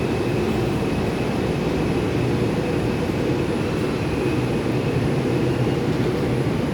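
Steady low rumble inside an R142 subway car, with a faint high tone that fades out about five seconds in.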